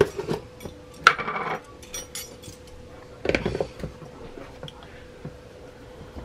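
A plastic cornstarch tub being opened and scooped from: short clicks and a rattly rub as the lid comes off about a second in, then a metal measuring spoon scraping and clinking in the powder a couple of seconds later. A faint steady hum runs underneath.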